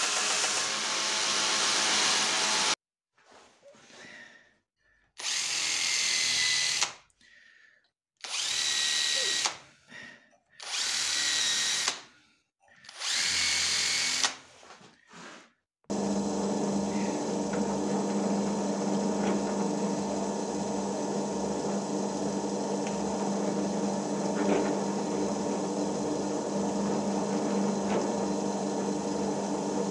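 Belt grinder running as a wooden handle scale is pressed against the belt, cut off after about three seconds. Then a hand drill starts and stops in a series of short bursts, each with a steady whine, drilling through the wooden scale. From about halfway a bench drill press runs steadily with a low hum.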